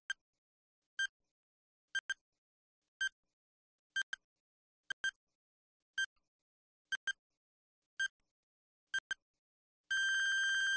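Electronic countdown-timer beeps: one short high-pitched beep each second, several of them doubled by a quick second blip, then a long steady beep starting near the end as the count reaches zero.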